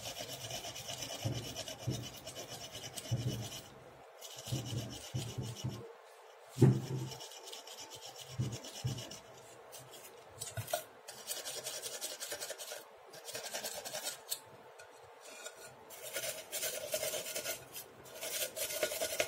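Steel wool scrubbing rust off the metal load cells of a digital bathroom scale, in repeated stretches of scratchy rubbing with short pauses. The rust is being cleared because it spoils the load cells' electrical contact. A single sharp knock comes about six and a half seconds in.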